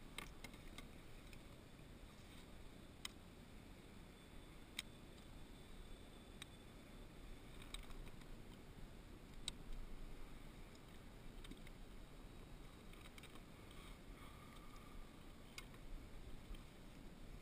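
Quiet, with a handful of sharp small clicks and knocks, a few seconds apart, from fishing gear being handled aboard a plastic kayak.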